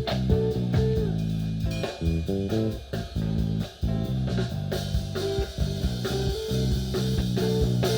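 Live band playing an instrumental passage: bass and guitar notes over a drum kit with regular beats, stopping right at the end.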